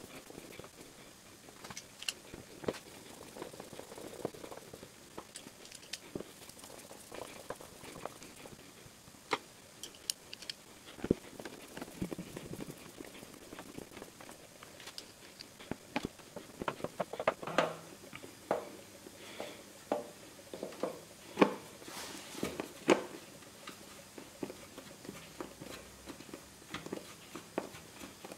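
Scattered light clicks and taps of a hand-held Phillips screwdriver and screws working against a plastic motorcycle airbox cover as its screws are driven in by hand, with the taps coming thicker in the second half.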